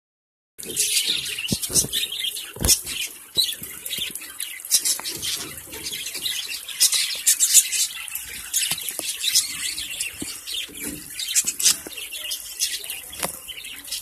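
Budgerigars bathing in a shallow steel pan of water: splashing and wing-fluttering mixed with the flock's busy high chirping and chatter, with a few sharp knocks.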